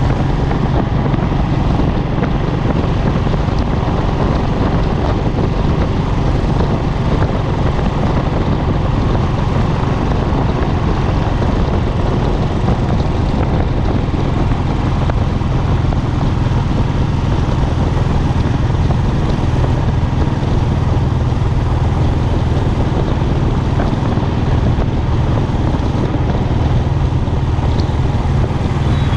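Royal Enfield Classic's single-cylinder engine and exhaust running steadily at cruising speed, heard from a handlebar-mounted camera, with wind rush over the microphone.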